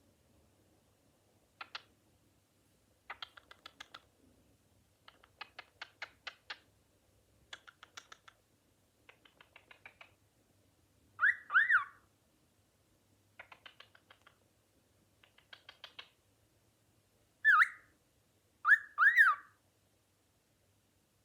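Cockatiel chattering in short bursts of rapid clicks, broken by loud whistled notes that rise and fall: two just past the middle and three near the end.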